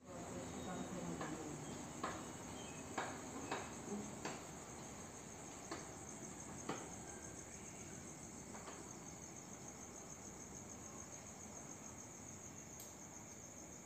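Crickets chirring steadily in a high, even band, with a few soft knocks scattered through the first several seconds.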